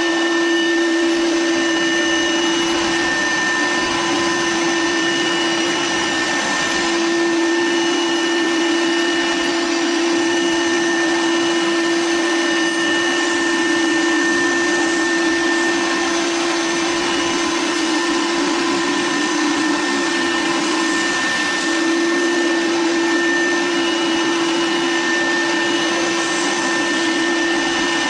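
Fulltek PA-3713 CNC machining center running: a steady, loud whir of motors and air. Several steady whining tones ride on top of it and drop out briefly and come back a few times.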